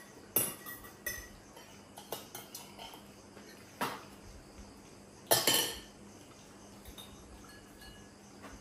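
Cutlery and dishes clinking: scattered short clinks and knocks, the loudest a quick cluster about five seconds in, over a faint steady chirring of crickets.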